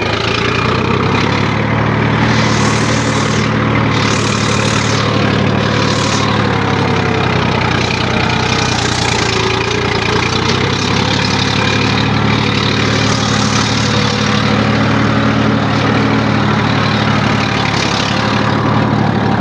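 Tractor engine running steadily with an even, low-pitched drone.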